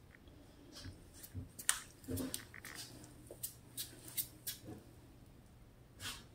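Footsteps on a hardwood floor: faint, irregular light clicks and taps in a quiet small room.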